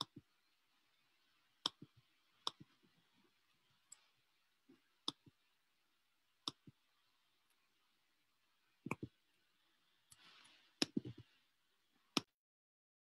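About ten sharp clicks, spaced irregularly, over faint room hiss, with a brief rustle and a few low thumps a little before the end; then the sound cuts out entirely.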